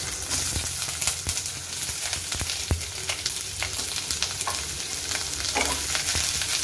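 Chopped onion sizzling as it hits hot oil in a non-stick kadhai and frying steadily, with scattered clicks of a metal spoon stirring against the pan.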